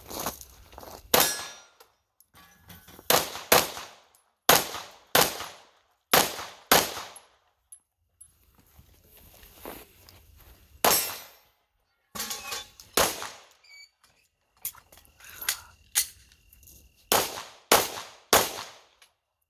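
A string of about fifteen pistol shots fired at an uneven pace, mostly a second or less apart with a longer gap midway, during an action pistol stage. Hits on steel targets clang between the shots.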